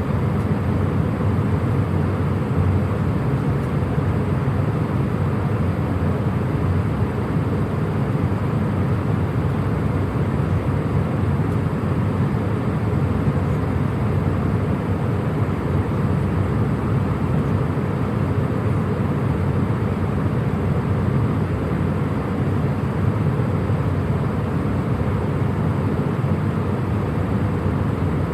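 Cabin ambience inside a passenger jet in flight: a steady, even rumble of engine and airflow noise, heaviest in the low end, with no changes or distinct events.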